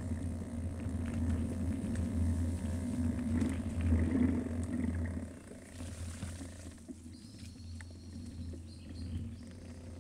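Steady low rumble of wind buffeting and jostling on a small cube action camera's built-in microphone as it travels along a dirt track. The rumble eases off about halfway through. A faint, thin high tone lasts a couple of seconds near the end.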